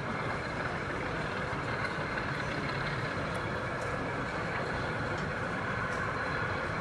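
A model locomotive running on a layout, making a steady engine-like hum with no change in pitch or level.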